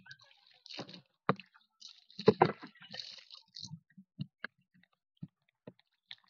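Water poured from a plastic bucket splashing into a plastic water tank, in a couple of spells of splashing, with scattered light knocks of the bucket against the tank.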